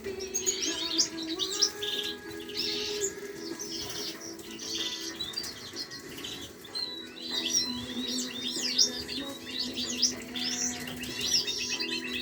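Caged canaries chirping and twittering in quick, repeated bursts, over background music.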